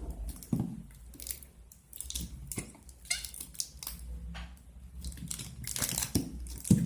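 Plastic glue bottle and container being handled while white glue is poured out: irregular clicks, knocks and crinkling.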